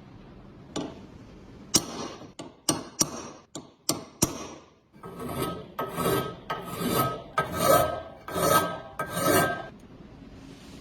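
A run of about eight sharp clicks and knocks, then about seven rhythmic hand-scraping strokes on a part of an old bread cutter being restored, with a rasping sound like filing.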